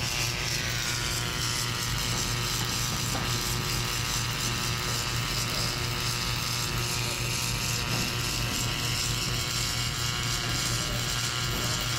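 Submerged arc welding tractor laying a weld under granular flux: a steady hiss with a steady low hum underneath.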